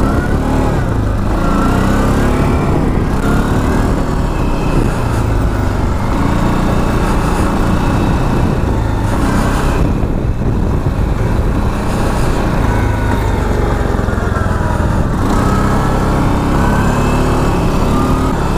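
CFMoto 625 cc ATV engine running under way on a snowy track, its pitch rising and falling with the throttle, over a steady low rumble.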